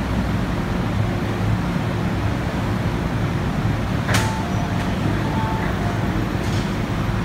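MTR M-Train standing at the platform with a steady low hum, and a short sharp noise about four seconds in as its passenger doors and the platform gates slide open, followed by a few brief faint tones.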